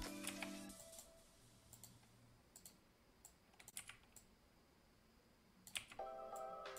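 Background music dies away in the first second and comes back near the end. In between it is near silence, broken by a few faint, sharp clicks of a computer keyboard and mouse.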